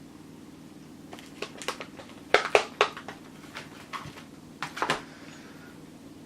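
Scattered light clicks and taps of food and utensils being handled while a chicken wrap is put together, with the sharpest cluster about two and a half seconds in, over a steady low hum.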